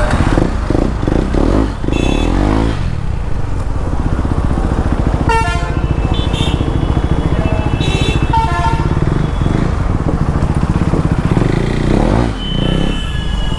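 KTM Duke 390 single-cylinder engine running under way, its pitch rising and falling with the throttle near the start and near the end. Vehicle horns honk several times, clearest about five and eight seconds in.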